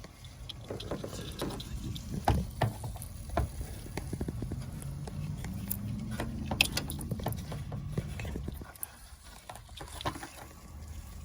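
Hands fumbling a 9006 LED headlight bulb's wiring connector into place in a car's wheel well: scattered plastic clicks, taps and rustling, over a low rumble that swells for a few seconds in the middle.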